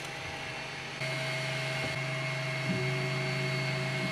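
Artillery Sidewinder X4 Pro 3D printer running, its stepper motors and fans making a steady hum. A louder hum starts about a second in and a further tone joins near the end, as the printer resumes work after a filament runout.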